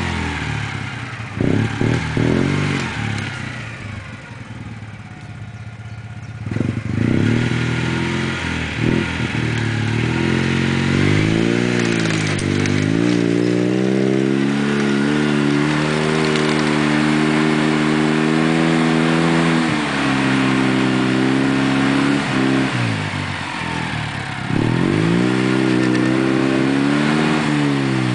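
Citroën Visa's two-cylinder engine revving hard under load as the car strains through a ditch. The revs fall off about four seconds in, climb and hold high, then dip again briefly before rising once more, with some clattering near the start.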